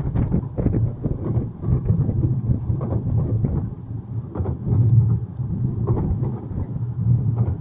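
Narrow-gauge train running along the track, heard from aboard: a steady low rumble with frequent irregular knocks and clatter from the wheels and carriage.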